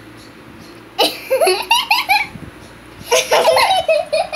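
A child laughing in two bouts of high, pulsing laughter, about a second in and again about three seconds in.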